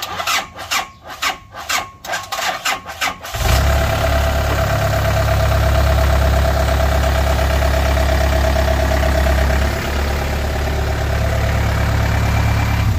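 Yanmar 70 combine harvester's non-turbo four-cylinder 4TNV98 diesel cranked by its starter at about four strokes a second for some three seconds. It then catches and runs steadily at a loud idle.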